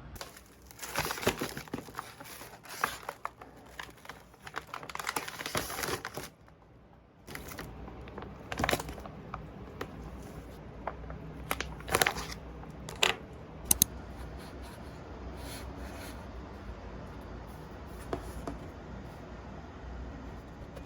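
Crinkling and tearing of a wrapper for about five seconds, then a short pause and a few sharp clicks and light knocks.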